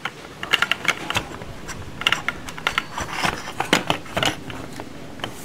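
Clicks, taps and clatter of a hard-plastic toy dough extruder car being handled: dough pressed into its hinged chamber and the plastic body swung shut. The clicks come in quick irregular clusters for about four seconds, with one more tap near the end.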